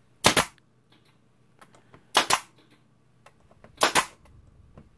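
Pneumatic finish nailer firing finishing nails through a thin hardboard backing, three sharp shots about two seconds apart.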